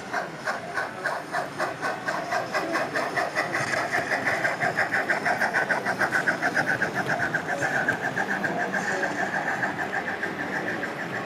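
Sound-fitted model steam locomotive chuffing in an even rhythm of about five beats a second as it hauls a goods train past. It is loudest in the middle as the engine draws level.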